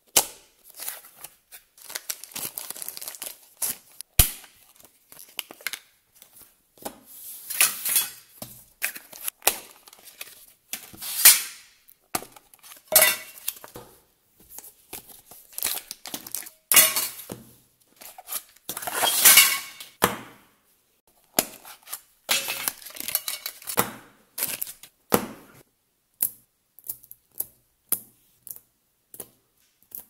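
Plastic wrapping being torn and crinkled off packs of Neoballs magnetic balls and their cardboard boxes handled, in separate bursts of tearing and rustling with sharp clicks between. Near the end only sparse light clicks remain.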